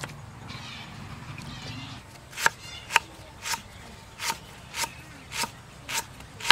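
Kitchen knife slicing a lemongrass stalk on a thick wooden chopping block. About two seconds in, a steady series of sharp chops begins, about two a second.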